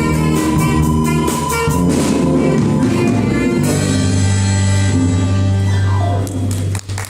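A youth orchestra playing the closing bars of a piece, ending on a long held low chord that stops shortly before the end.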